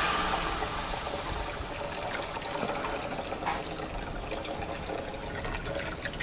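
Homemade coconut milk trickling and splashing into a pot of liquid as water is poured over grated coconut through a hand-held strainer.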